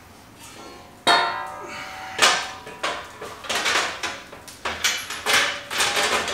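Steel shelf frame knocking and clanking against the welding table's legs as it is fitted into place, each hit leaving a short metallic ring. The first knock comes about a second in, then a run of irregular clanks.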